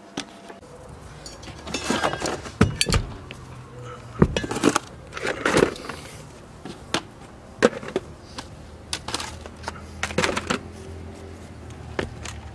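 Irregular knocks, clunks and rattles of objects being handled and set down on a car's back seat, over a low steady hum that comes in about half a second in.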